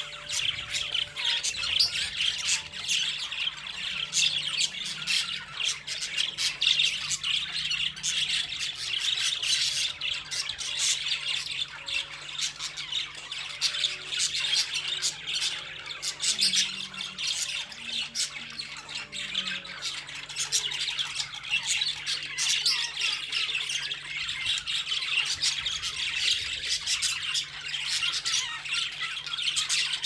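Cockatiel chattering and squawking without a break, a dense stream of short harsh calls.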